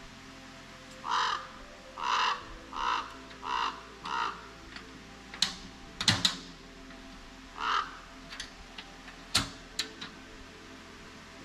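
A crow cawing: five caws in a steady series, then one more a few seconds later. Several sharp knocks fall between them, the loudest near the middle.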